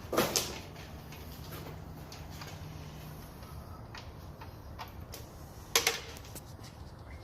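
Metal clanks and light clicks from tools and parts being handled under a car on a lift. There is a sharp clank just after the start, scattered small clicks, and a loud double clank near six seconds, over a low hum that fades about three seconds in.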